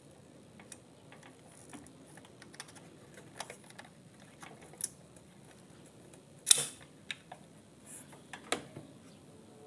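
Irregular light clicks and taps from a soldering iron and hands working on a circuit board while a component is desoldered, the loudest click about six and a half seconds in.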